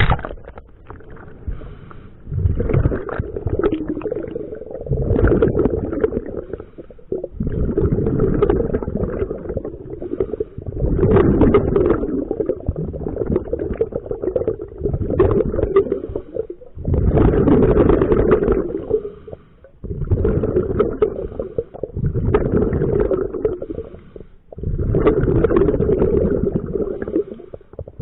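Scuba diver breathing through a regulator underwater, heard as a bubbling rush with each breath, every few seconds, with short pauses between breaths.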